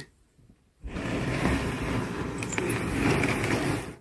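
A large plywood concrete-wall form panel sliding across the plywood form stacked beneath it: a steady scraping noise, about three seconds long, that starts about a second in.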